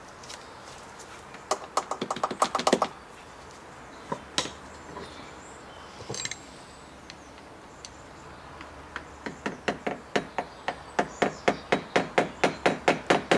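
Hammer taps on a metal tool held against a seized screw in a motorcycle engine's power valve housing, trying to shock it loose. A quick flurry of about eight taps comes near two seconds in, then a single tap, then a long run of evenly spaced taps, about four a second, over the last four seconds.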